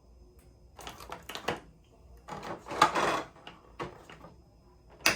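Packaging and model-kit parts being handled: two bouts of rustling and clattering, the louder in the middle, and a sharp click near the end.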